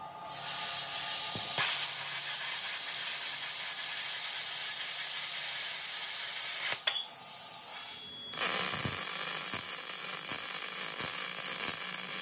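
Wire-feed welder arc on steel, a steady frying crackle as a weld bead is laid. It breaks briefly with a click about seven seconds in, stops a second later, and a second, quieter crackling weld starts.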